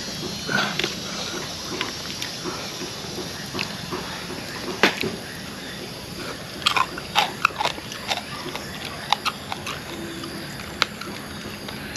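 Close-up mouth sounds of gnawing meat off a grilled pork rib bone: irregular wet chewing, smacking and tearing clicks. The sharpest smack comes about five seconds in, and a busier run of them follows shortly after.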